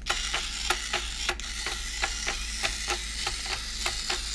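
Hexbug Spider robotic toy walking under remote control: its small electric motor and gear-driven legs make a steady run of rapid clicks, about five a second, over a light whir.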